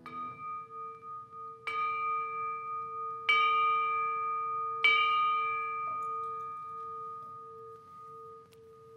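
A hanging metal bell struck four times with a mallet, about a second and a half apart, the last two strokes the loudest. Each stroke rings on with several overlapping tones that fade slowly after the last one.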